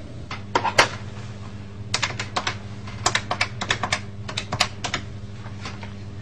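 Typing on a keyboard: irregular clicking keystrokes, some single and some in quick runs, over a steady low hum.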